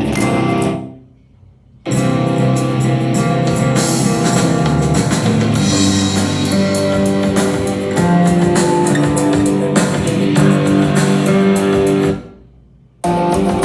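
Music with guitar, drums and bass played through a portable Bluetooth speaker for a sound test. It fades out about a second in and cuts back in abruptly, then drops out again near the end before restarting.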